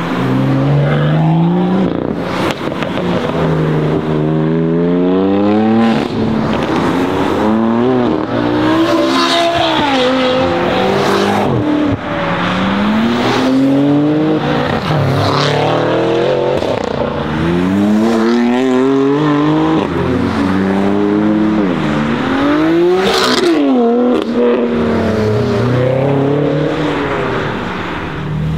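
Several BMW M cars accelerating hard, one after another. Their engine notes climb in pitch through the gears and drop back at each upshift, with a few sharp cracks in between.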